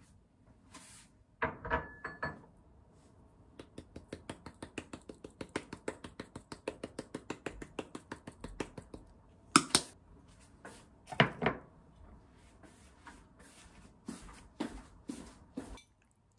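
Parsley being sprinkled from its container onto a dish: rapid, even clicking for several seconds, with a few louder knocks and clinks before and after.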